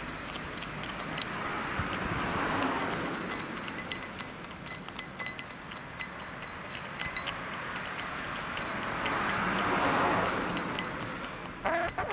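Chickens pecking at rice, a scatter of small sharp ticks, under two slow swells of rushing noise about two seconds in and again near ten seconds. A hen clucks just before the end.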